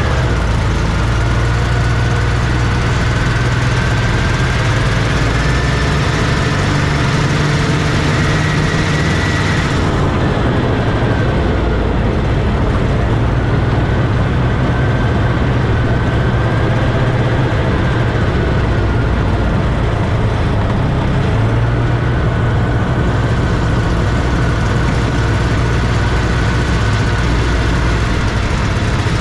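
A vintage Scorpion snowmobile's two-stroke engine runs steadily as the sled rides along at low speed. The engine note climbs gradually, drops back about ten seconds in, then holds fairly even with small rises and falls.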